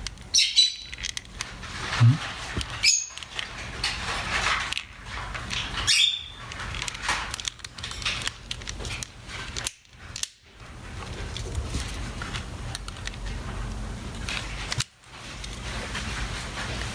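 Clicks, taps and rustling as the plastic casing parts of a Panasonic ES-RL21 shaver are handled and snapped back together, with several sharp clicks in the first few seconds.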